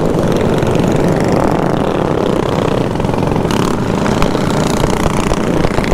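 Mini bike engines running under way as a pack rides along, mixed with wind rushing over the rider's helmet-mounted microphone.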